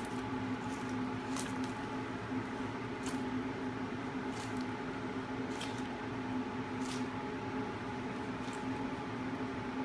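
Crocodile monitor lizard crushing a balut egg in its jaws: short wet squishing crunches about every second and a half, over a steady background hum.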